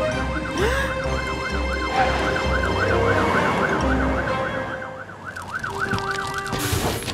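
Cartoon fire-truck siren warbling quickly up and down, about three times a second, over a low engine rumble that drops away about four seconds in.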